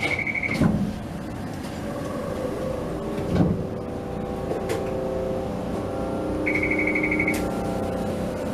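A tram running slowly, heard from inside the driver's cab: a steady running hum with two low knocks. A bell rings in a fast trill twice, briefly at the start and again about seven seconds in.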